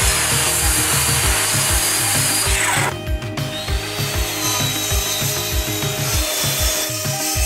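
Power-tool work on wood over background music with a steady drumbeat. A loud hissing run ends sharply about three seconds in, and a second run follows, with the Ryobi miter saw cutting through a small wooden block.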